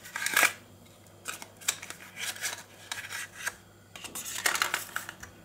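Cardboard smartwatch packaging being handled: a card insert sliding and rubbing against the box, and a small plastic charging dock being lifted out, in short irregular scrapes and light taps.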